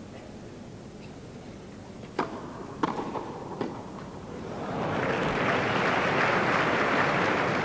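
Three sharp tennis-ball strikes on rackets in a short rally, followed by crowd applause that swells up about four and a half seconds in and carries on, marking the end of the point.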